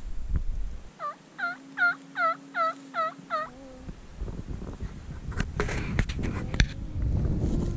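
A series of about seven evenly spaced turkey yelps, roughly two and a half a second, as in turkey-hunting calling. From about four seconds in, rustling and sharp clicks take over and grow louder.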